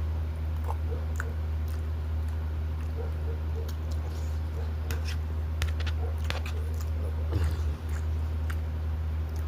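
A person chewing and eating food close to the microphone: scattered short mouth clicks and smacks over a steady low hum, with a brief louder falling sound about seven and a half seconds in.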